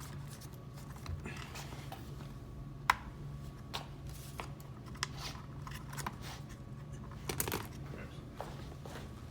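Electrical cables being handled and worked back through rubber grommets: scattered small clicks and rustles, with one sharp click about three seconds in and a cluster of rustles near the end. A steady low hum runs underneath.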